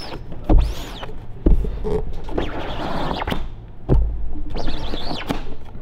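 Squeegee strokes dragging black plastisol ink across the mesh of a screen on a manual screen-printing press: a few scraping sweeps, with dull thumps of the screen and press between them.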